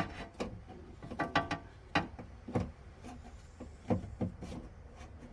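A string of irregular sharp clicks and knocks from the door's handle and lock parts being handled and worked loose, with about ten in all.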